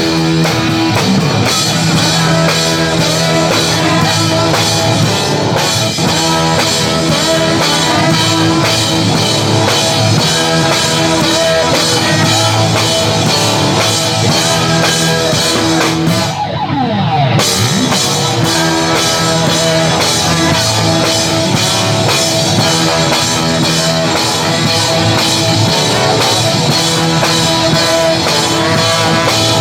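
Rock band playing: electric guitar and drum kit with a steady beat. About halfway, the drums and cymbals drop out for about a second under a sliding guitar note, then the band comes back in.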